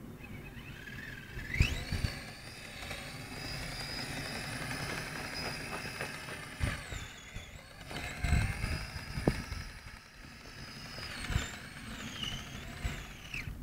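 Kyosho Blizzard RC snow vehicle's electric motor whining as it drives in powdery snow. The pitch rises about a second in, holds, drops briefly, then climbs and wavers again as the throttle changes. A few dull thumps come along the way.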